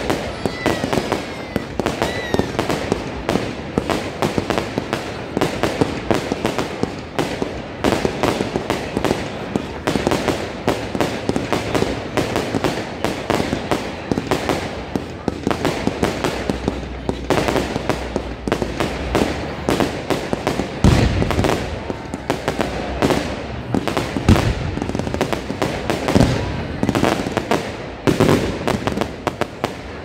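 Fireworks display: a dense, continuous run of bangs and crackles, with a few heavier booms in the last third.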